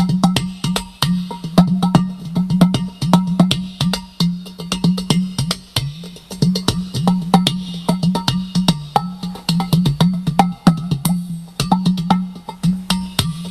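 Udu clay pot drum played fast by hand: a dense stream of sharp taps and slaps on the pot's body over a repeated deep bass tone from the side hole whose pitch bends slightly.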